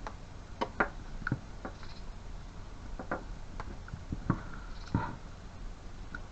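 Irregular light clicks and taps of a screw being tightened and plastic floor-fan parts being handled, about eight sharp ticks spread unevenly.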